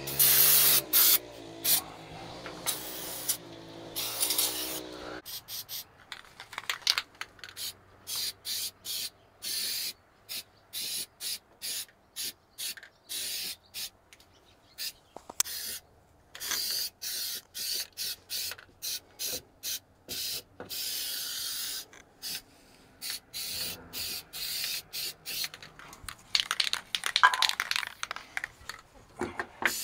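A steady pitched hum for about five seconds, which stops, followed by many short, choppy bursts of hiss.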